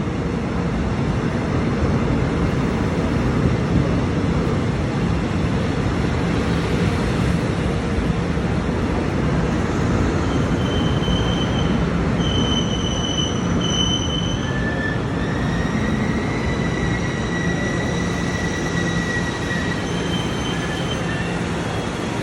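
Taiwan Railway EMU500 electric multiple unit pulling into a station: a steady rumble of wheels on rail, with high-pitched squealing coming and going from about ten seconds in as the train slows.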